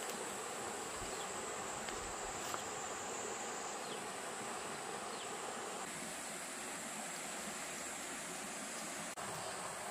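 Insects buzzing in a steady high drone over the even rush of a running stream, with a few faint ticks from rope and wood being handled.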